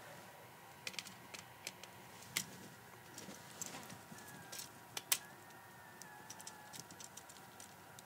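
Screwdriver clicking and scraping on the brass hot-wire terminal screw of a USB wall receptacle as the wire is fastened under it: a scatter of faint, sharp clicks, the loudest about two and a half and five seconds in.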